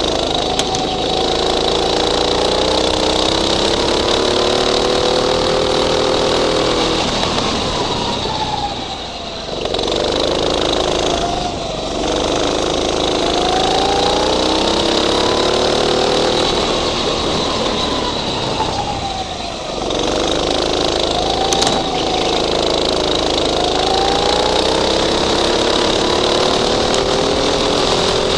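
Go-kart engine heard from on the kart. It revs up in long climbs along the straights and drops off sharply three times as the throttle is lifted for corners.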